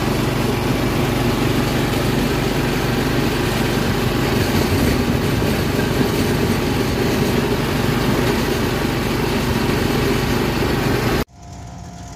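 Diesel locomotive running, heard from the cab: a loud, steady engine rumble with a rushing noise over it. It cuts off abruptly near the end, leaving a much quieter engine hum.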